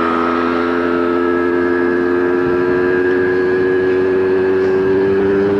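Small motorcycle engine running steadily under way, its pitch rising slowly as the revs build.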